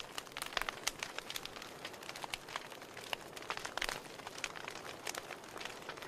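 Wood fire burning in a fireplace: logs crackling with frequent, irregular small pops over a soft steady hiss.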